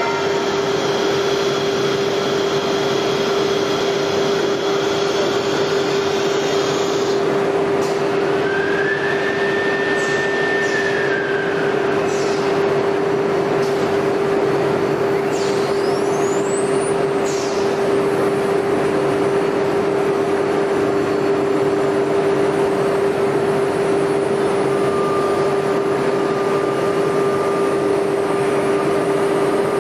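An ATC CNC router spindle cutting grooves in an MDF sheet, running as a steady whine over the noisy hiss of the cut. A short higher tone rises, holds and falls about nine seconds in.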